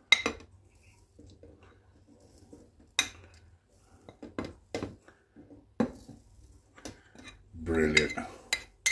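A metal spoon scraping spice powder off a ceramic plate and knocking against the plate and the plastic blender jug: a scatter of separate clinks and scrapes.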